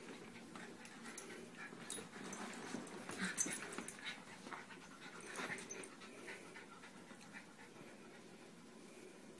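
Two small dogs play-wrestling on a leather sofa: panting and scuffling, with a cluster of sharper sounds about a third of the way in and another around the middle, quieter near the end.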